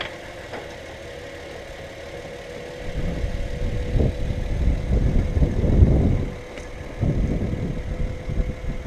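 2013 Honda Pilot's 3.5-litre V6 running. About three seconds in, a louder, uneven low rumble sets in, dipping briefly and coming back, as the SUV is backed down off its ramps.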